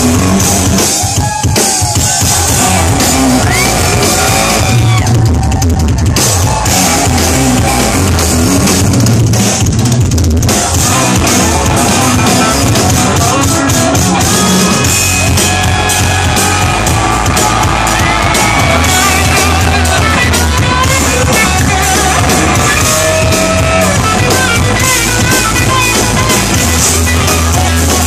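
Live rock band playing loud: drum kit, bass guitar and electric guitar.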